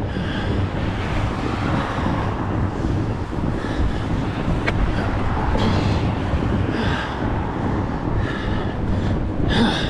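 Wind buffeting the action-camera microphone in a snow storm, a steady low rumble, with short higher-pitched sounds recurring every second or so and a sharp click about halfway through.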